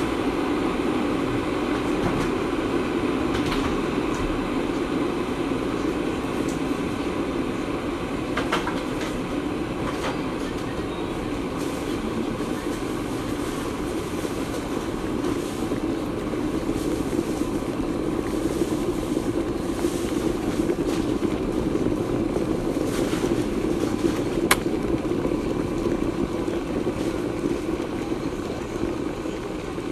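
A steady whirring hum of a running fan, with a few faint clicks and one sharp click late on.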